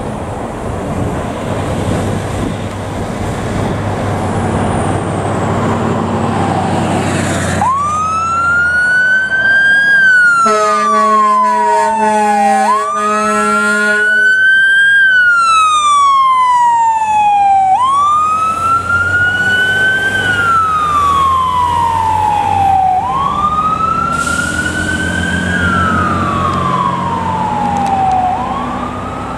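Fire engine responding: its engine runs for the first seven seconds, then its siren starts wailing, each cycle rising quickly and falling slowly, about every five seconds. Between about ten and fourteen seconds in, its horn joins in short repeated blasts.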